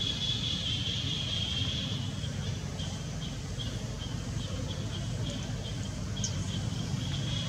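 High, steady insect drone that breaks into a rapid pulsing about a third of the way in and turns steady again near the end, over a low steady rumble.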